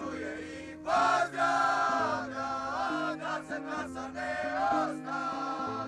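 Music: voices singing together in long held notes over a steady low accompaniment, the singing coming in about a second in.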